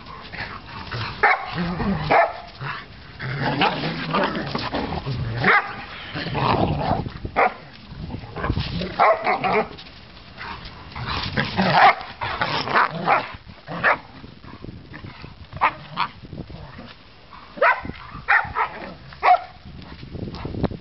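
An adult dog and a puppy at play, giving short barks and yips in irregular bursts.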